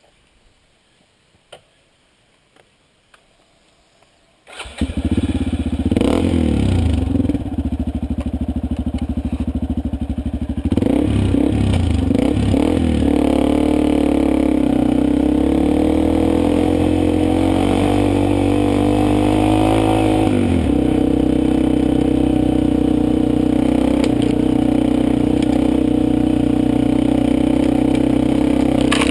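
Motorcycle engine starting about four seconds in after a few faint clicks, revving briefly a couple of times, then running steadily.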